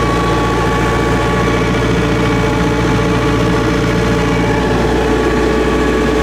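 Excavator's diesel engine running steadily at an even, constant speed.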